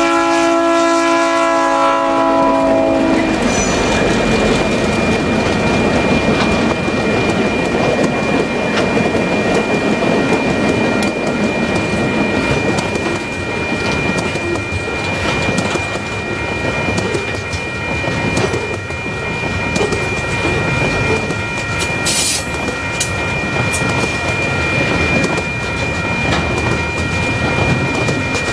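A freight train's diesel locomotive horn sounds a chord that stops about three seconds in. Then the locomotives and a long string of loaded container wagons roll past close by, with steady rolling noise, wheels clicking over the rail joints and a faint steady high ringing tone.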